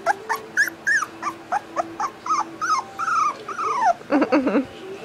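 Boxer puppy whimpering: a rapid run of short, high-pitched whines, each rising and falling, about three a second, with a lower, wavering sound about four seconds in.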